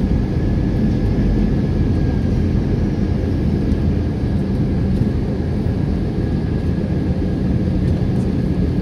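Steady rumble of an airliner's engines and rushing air, heard from inside the passenger cabin in flight, with a faint steady high whine running through it.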